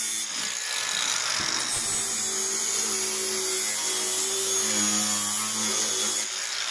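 Cordless angle grinder grinding along the rusty steel sill of a Ford Transit, taking it back to clean metal to find out whether it is too thin to weld. A steady motor whine under the grinding hiss, stopping near the end.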